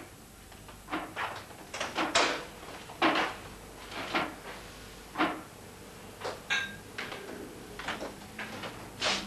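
Irregular series of short knocks and clunks, about one or two a second.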